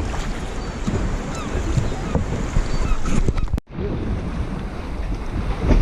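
Wind buffeting the microphone over lapping lake water with small splashes. The sound cuts out for a split second about three and a half seconds in.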